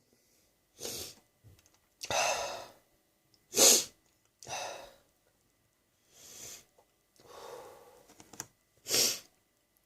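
A person sniffing and breathing hard through the nose just after a sneeze: a string of short breaths and sniffs about a second apart, the sharpest about four seconds in and near the end.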